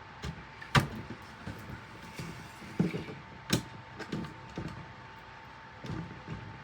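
Hands fitting computer parts: a few sharp clicks and several duller knocks at irregular moments, the loudest click about a second in, over a faint steady whine.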